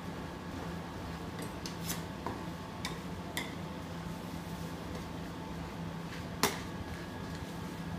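Metal spatulas scraping and tapping on the frozen steel pan of a rolled-ice-cream counter as the ice cream mixture is spread flat: scattered light clicks, one sharper clink about six and a half seconds in, over a steady low hum.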